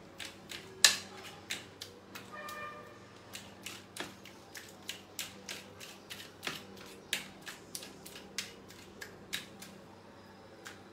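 A utensil clicking and tapping against a plate as a tomato is smashed on it, in irregular strokes about two a second, one much louder near the start.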